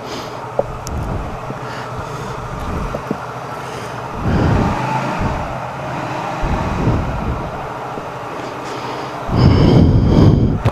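Road traffic noise from vehicles passing in the street, swelling louder about four seconds in and again near the end.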